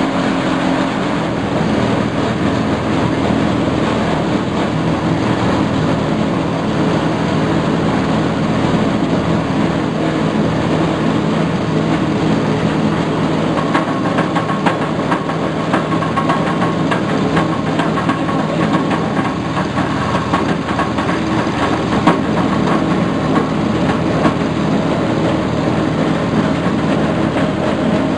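Foam shredding machine running steadily on its small petrol engine, with a busy clatter of rapid ticks as foam is fed into the hopper.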